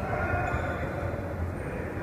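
Steady low rumble of a gym hall's room noise, with faint distant voices.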